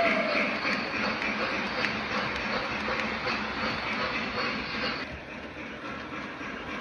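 Model train running past on its track: a steady rolling rumble of the wheels on the rails, which fades about five seconds in as the last passenger car goes by. The last of the locomotive's whistle dies away at the very start.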